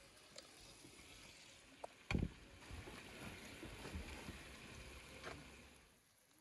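A large steel frying pan full of fried trout set down with one heavy thud on a metal stand about two seconds in, followed by the hot fish sizzling in the pan with a few small clicks of a spatula, fading out near the end.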